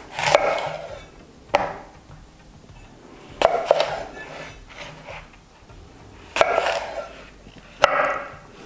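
Kitchen knife cutting through a crisp apple on a wooden cutting board: about five separate cuts, each a short crunch with a knock of the blade on the board.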